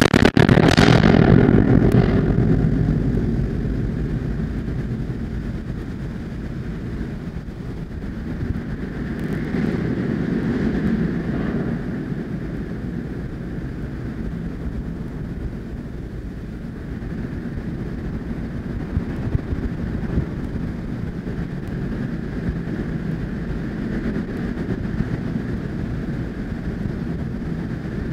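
Wind buffeting the nest-box microphone: a steady low rumbling noise with no bird calls, loudest in the first two seconds and swelling and easing after that.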